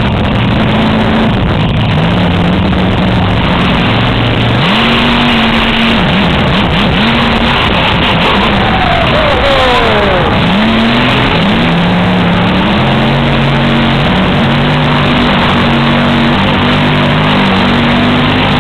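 Monster truck engine revving hard again and again, the pitch climbing and dropping as the throttle is worked, loud throughout. A higher whine falls in pitch about nine seconds in.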